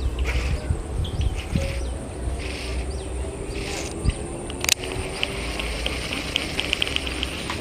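Outdoor ambience with birds chirping in short repeated calls over a steady low rumble. A sharp click comes just past halfway, followed by a quick run of ticks.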